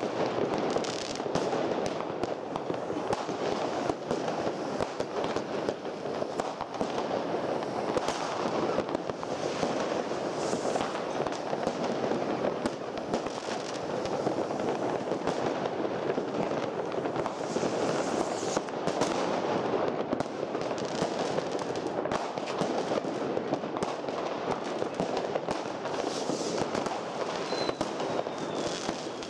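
Many fireworks going off at once, rockets and firecrackers: a dense, unbroken crackling and popping at a steady level, with no single bang standing out.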